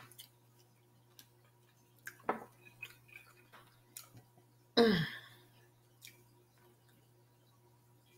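A loud, short burp about five seconds in, its pitch falling as it goes, among soft mouth and chewing clicks.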